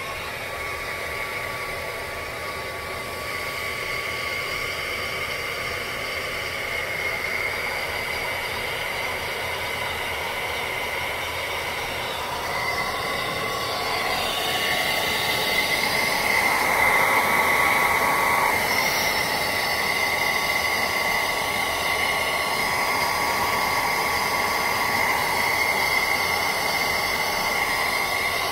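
Handheld hair dryer switching on and blowing steadily, a motor whine over rushing air, drying lace-wig glue at the hairline until it sets clear. It grows a little louder about halfway through.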